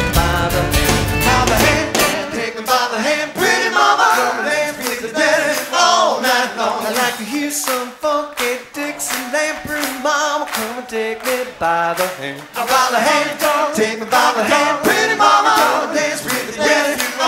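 Background music: a song with sung vocals over a steady beat. The deep bass drops out about two seconds in.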